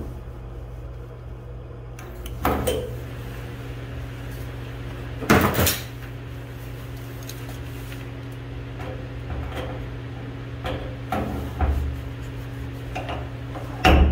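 Dent pulling on a van's steel body panel: pull studs shot on with a stud-welder gun and pulled with a slide-hammer dent puller, heard as scattered short knocks, a loud pair about five seconds in and lighter ones later, over a steady low hum.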